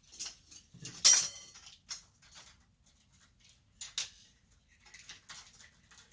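Metal parts of a chandelier clinking and scraping as its old sockets and hardware are worked loose by hand and with a screwdriver. There is a louder clatter about a second in and a sharp click near four seconds.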